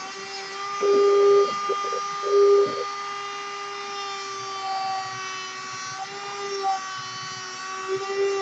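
Dremel rotary tool running through its flexible-shaft handpiece with a steady high whine, cutting a thin wooden dowel. It gets louder and rougher twice, about one second and two and a half seconds in, as the bit bites into the wood.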